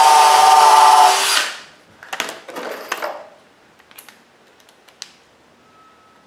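Power drill running at speed into wood for about a second and a half, then spinning down, followed by a few clicks and knocks.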